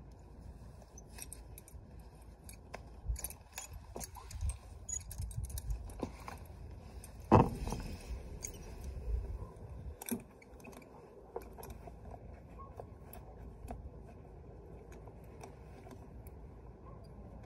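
Metal horse-tack hardware, buckles and rings on leather straps, clinking and jangling in short irregular clicks as a saddle and bridle are handled. The loudest sound is a sharp knock about seven seconds in, with another about ten seconds in.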